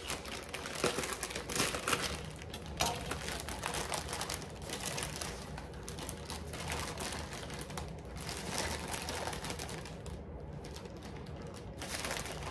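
Plastic produce bag of broccoli and cauliflower crinkling and rustling as it is cut open and emptied by hand, with scattered light clicks and taps as the knife is set down and florets land on the cutting board. The clatter is busiest in the first few seconds and thins out later.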